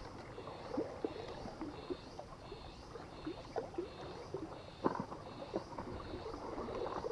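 A knife blade pressing and scraping against a rock, making a few light clicks and one sharper knock about five seconds in, over a low rumble of wind and sea.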